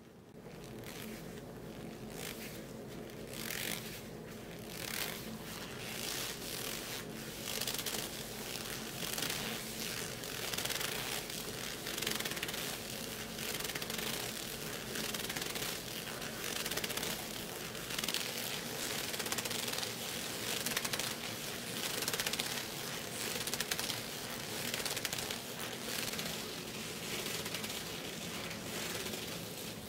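Thin unlined leather gloves rubbing against each other as gloved hands clasp, wring and flex: a continuous scratchy rubbing made of many short strokes.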